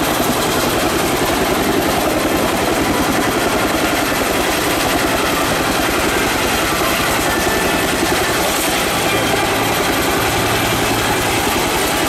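Bell UH-1J utility helicopter's two-blade main rotor chopping in a steady, rapid beat over the whine of its turbine, the helicopter holding over the ground while soldiers come down a rope from it.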